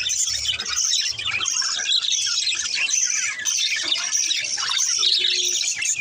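Budgerigars chirping and chattering continuously, a dense stream of quick high chirps and warbles.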